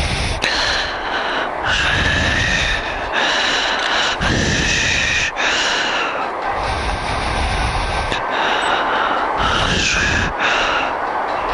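Yamaha MT-09's three-cylinder engine running under way, heard with heavy wind rush and buffeting over the microphone. The engine note rises and falls several times, with brief dips in between.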